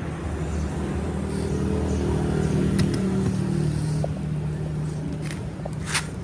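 A motor running with a steady hum that swells slightly midway, with a few sharp clicks near the end.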